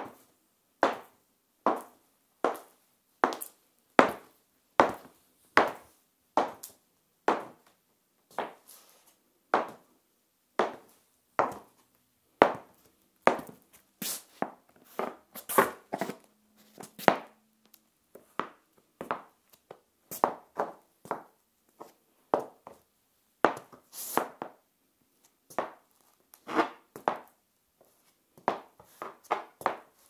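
Metal-tipped stiletto high heels walking on a tiled floor: a steady run of sharp heel clicks, about one step every three-quarters of a second, quickening into closer, uneven steps near the end.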